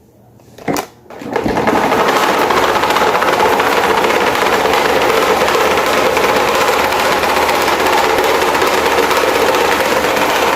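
CCE electric fan switched on with a click, then running with a loud, steady mechanical rattle from about a second and a half in. The fan is faulty and vibrates so hard that it creeps across the floor.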